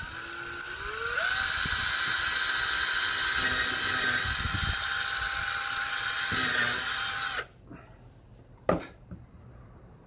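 Cordless drill boring a 1/4-inch hole through EPDM foam, its motor speeding up about a second in, running steady, then stopping suddenly after about seven seconds. A single sharp knock follows shortly after.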